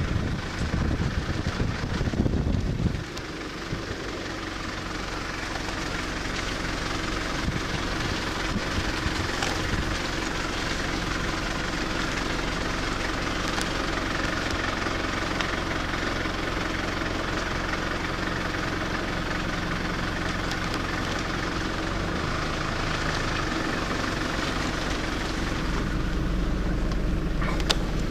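Car engine running and road noise heard from inside the cabin, a steady, even hum. For about the first three seconds a louder low rumble of wind on the microphone covers it, then drops away.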